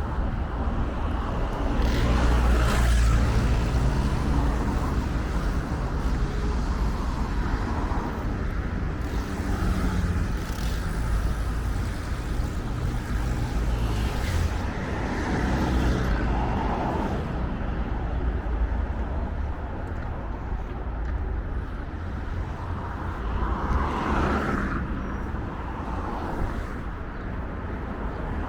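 Road traffic: a steady low rumble of engines and tyres, with vehicles passing by several times, the loudest about two to three seconds in and again around a quarter-minute in and near the end.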